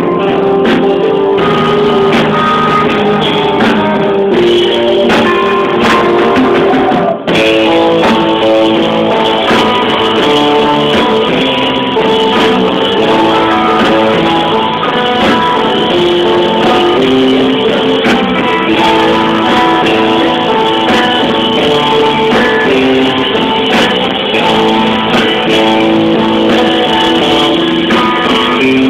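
Rock band playing live, with guitars carrying an instrumental passage and no singing. The sound dips out briefly about seven seconds in.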